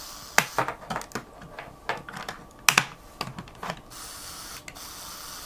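LEGO 9V system connector plugs, hard plastic, pressed onto and pulled off a battery box's stud-style output connector, giving a series of sharp plastic clicks, some in quick pairs, over the first four seconds.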